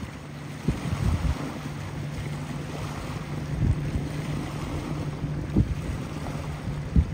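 Motorboat engines out on the river drone steadily under a wash of water and wind noise. Gusts of wind buffet the microphone several times.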